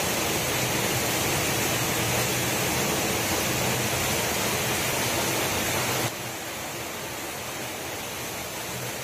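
Small waterfall's water pouring, a steady rushing hiss that drops to a lower level about six seconds in.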